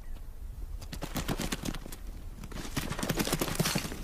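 Bharal (blue sheep) hooves clattering on rock and loose stones as the animals bolt in panic: a rapid, uneven clatter starting about a second in and loudest near the end.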